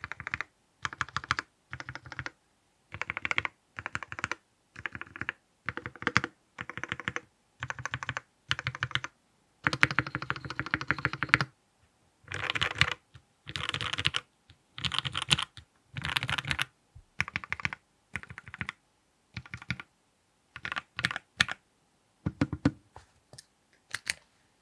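Typing on a King Keyboards Monarch 65% mechanical keyboard with Gateron Robin switches, a brass plate and GMK Classic Blue keycaps, with case foam fitted. The keystrokes come in short runs of about a second or two with brief pauses between them.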